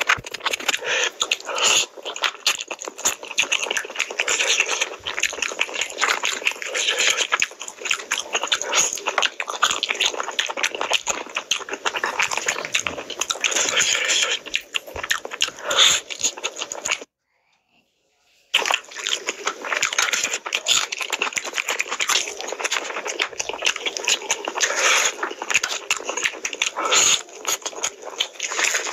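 Close-up eating sounds: fingers squelching as rice is mixed with curry gravy on a steel plate, and wet chewing and lip-smacking as handfuls are eaten. The sound is a dense crackle of small wet smacks and clicks. It breaks off into silence for about a second and a half a little past the middle.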